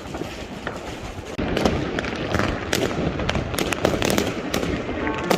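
Fireworks and firecrackers going off: a rapid scatter of sharp bangs and crackles over a continuous rumble, getting denser and louder about a second and a half in.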